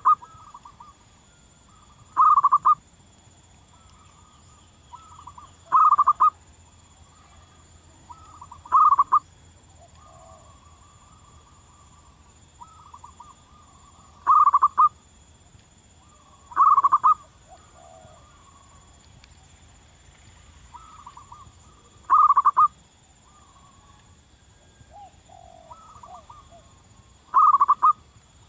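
Zebra dove cooing: about eight short, loud phrases of rapid cooing notes, repeated every few seconds, with fainter cooing phrases in between.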